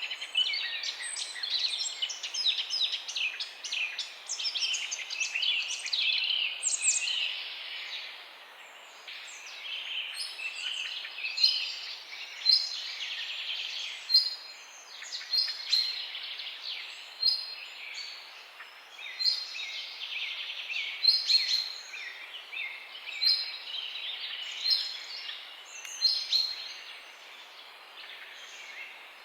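Several songbirds chirping and trilling together over a faint background hiss. The chirps crowd together in the first few seconds, then come as separate short phrases about once a second.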